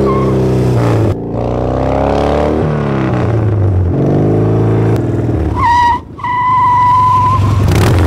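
1986 Harley-Davidson Heritage motorcycle's V-twin engine growling in a string of short clips. The engine note rises and falls in pitch and changes abruptly between clips about one, five and six seconds in. A steady high whine runs through the last couple of seconds.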